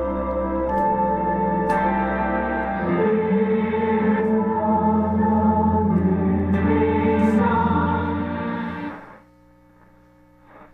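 Music with singing playing through the speaker of a 1938 GE F-81 tombstone radio. Its tone shifts about three seconds in as the tone control is turned. About nine seconds in the music cuts out and only a faint background remains while the dial is tuned away from the station.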